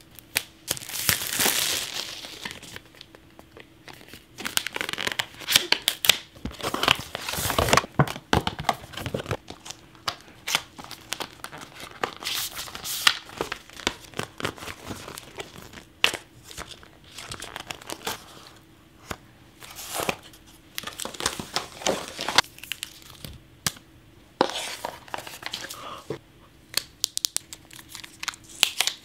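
Apple Watch packaging being unboxed by hand: paper tear strips and wrappers ripping and crinkling, with irregular clicks and taps as the box and its contents are handled. The loudest tearing comes about a second in and again around seven seconds in.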